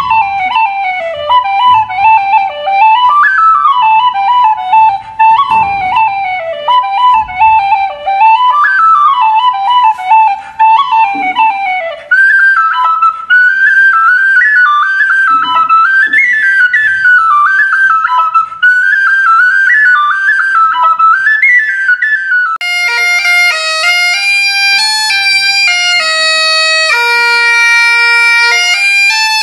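Tin whistle playing a quick melody of running notes, which moves higher about twelve seconds in. About twenty-two seconds in it cuts off and bagpipes take over, a chanter melody over steady drones.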